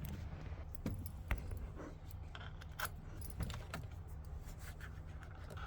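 Scattered light clicks and small rattles of hands prying the small plastic clip covers off a 2005 Mustang GT steering wheel, over a steady low hum.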